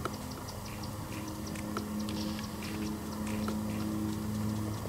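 Deer feeding close by: scattered small clicks and crunches of grazing and steps in dry grass, over a steady low hum.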